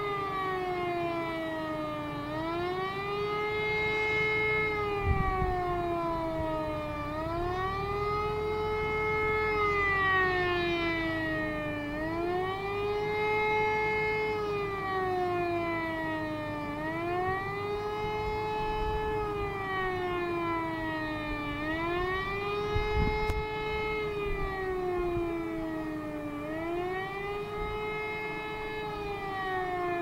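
Civil defence siren wailing in a repeated rising and falling tone, each cycle about five seconds long: it climbs fairly quickly, holds, then slides slowly down. It is sounding the warning tone during a siren test.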